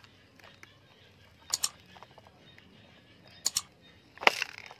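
Computer mouse click sound effects: a quick double click about a second and a half in, another double click about three and a half seconds in, then a sharper single click near the end, over a faint background.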